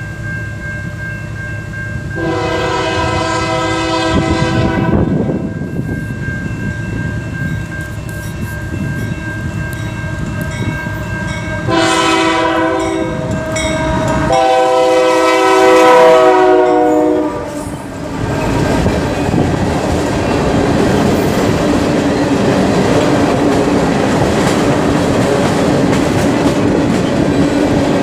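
Freight locomotive air horn sounding three blasts: a long one, a short one and another long one. Then a freight train of tank cars rolls past close by, steel wheels clicking over the rail joints.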